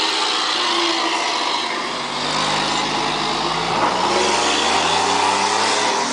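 Volkswagen 24.250 truck's diesel engine running with no muffler, loud and accelerating, its exhaust note climbing in pitch from about two seconds in.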